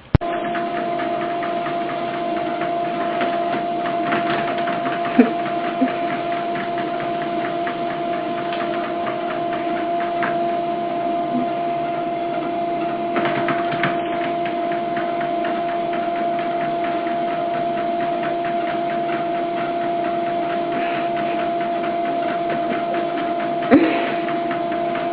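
A steady machine hum at a constant pitch over a noisy whir, with a few faint clicks and knocks, starting and stopping abruptly.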